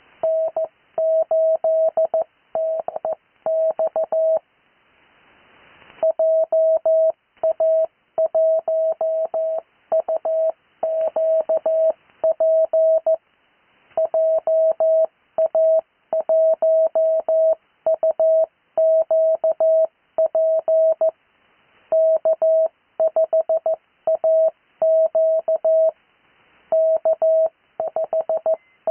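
Morse code (CW) on a steady tone of roughly 650 Hz, keyed in dots and dashes in groups with short gaps between: amateur radio callsigns sent for copying practice. A hiss builds for about a second and a half in a gap about four seconds in before the keying resumes.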